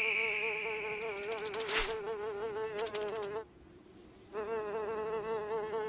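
Cartoon fly buzzing: a steady, wavering buzz that cuts out for about a second in the middle and then starts again. Two short swishes come just before the break, and a high tone fades away at the start.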